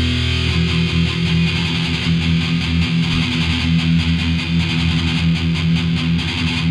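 Thrash metal recording: distorted electric guitars playing a fast, evenly picked riff with the band, the riff changing about half a second in.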